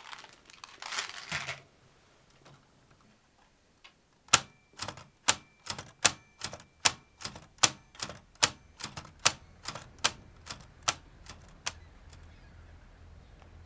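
Manual typewriter keys struck one at a time at an even pace, about two or three strokes a second for some seven seconds. Before the typing, a plastic bag rustles briefly.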